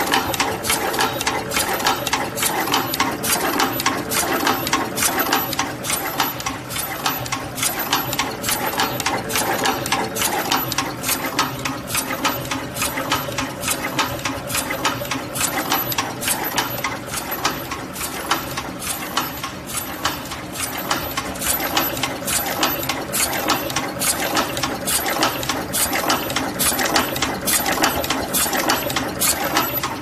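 Automatic double-end wire crimping machine running continuously, with a rapid, regular mechanical clicking of about three strokes a second.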